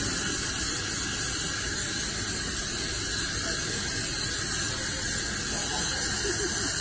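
Counter-top hat steamer blowing a jet of steam in a steady hiss, with a straw cowboy hat held in the jet to soften the straw for shaping.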